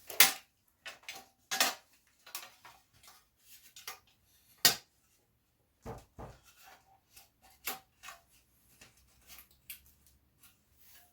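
Irregular metallic clinks, knocks and clanks of a new steel front mudguard and its fittings being handled and offered up to a motorcycle's front forks, with two louder clanks near the start and about halfway through.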